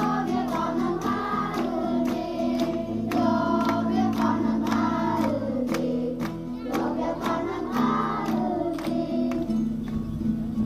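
Group of children singing together, led by a woman, over musical accompaniment with a steady beat, amplified through loudspeakers.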